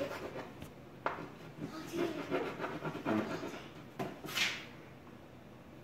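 Crayon scratching and tapping on a large white board in short coloring strokes, with faint voices in the background.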